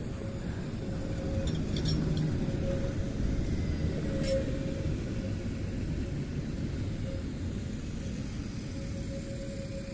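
Tram passing on curved track, its wheels rumbling on the rails with a faint steady whine. A few light clicks come early in the pass and one sharper click a few seconds in, as the wheels cross rail joints.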